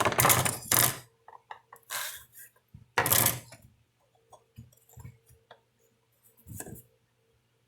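Clattering and knocking of metal tools and chainsaw parts being handled on a workbench: a few sharp clatters and smaller clicks. A faint, steady hum runs underneath.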